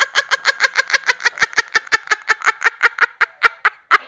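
A sound effect over the closing card: a rapid, even train of short pitched pulses, about eight a second, slowing a little before it stops near the end.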